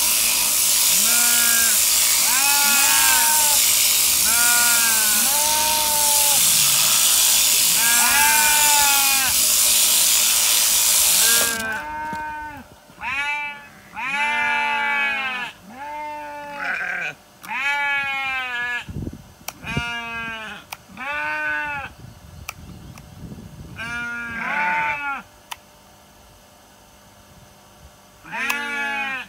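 A sheep bleating over and over, while an electric sheep-shearing handpiece runs with a steady high hiss. About eleven seconds in the shearing machine cuts off suddenly, and the sheep keeps bleating loudly.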